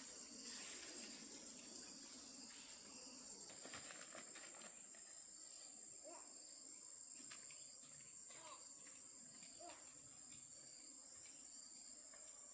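Insects trilling steadily in a single high-pitched tone, with a few faint short chirps and clicks over it.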